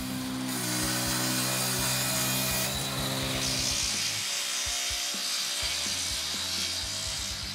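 Portable sawmill's large circular saw blade ripping lengthwise through a log, a steady hissing rasp of the blade cutting wood.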